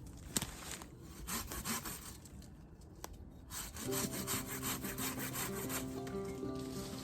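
Hand saw cutting through a live hazel stem low at its base, in repeated back-and-forth strokes. Background music with steady tones comes in about halfway through, while the sawing goes on.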